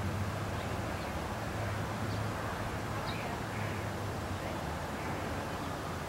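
Steady outdoor background: a low hum under an even wash of noise, with a few faint, short high chirps about two and three seconds in.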